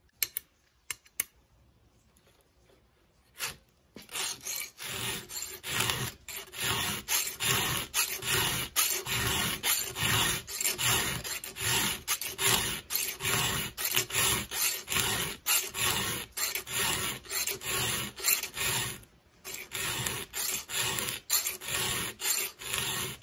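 Round chainsaw file rasping back and forth across a cutter on a small top-handle chainsaw's chain, sharpening it in steady strokes of roughly two a second. A few light clicks come first, the filing starts a few seconds in, and it pauses briefly near the end.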